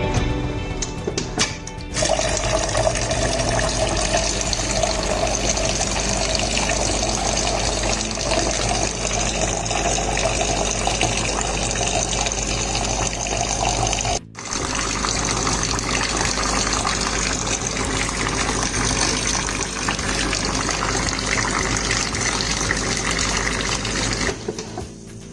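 Water running steadily and splashing into a container, stopping abruptly for a moment about halfway through and then resuming.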